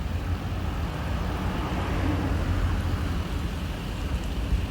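Truck wash machine at work on a truck: a steady low rumble with a hiss above it, a little stronger about two seconds in.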